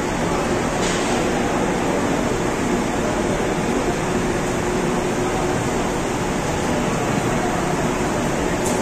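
Steady mechanical hum and rush with a faint constant tone in it, unchanging throughout, broken only by a light click about a second in and another near the end.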